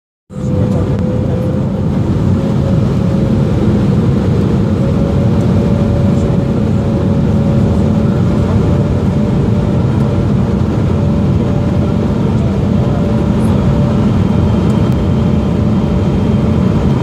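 Cabin noise inside an Embraer 175 on its landing approach: the steady roar of its GE CF34 turbofan engines and the airflow, with a faint steady whine that edges slightly higher over the first several seconds.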